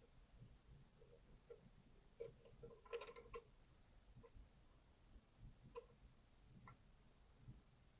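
Faint clicks and light scrapes of a lock pick working the pins and warding inside an ABUS V14 Pfaffenhain pin-tumbler lock, with a quick run of clicking about two to three seconds in and a few single ticks later.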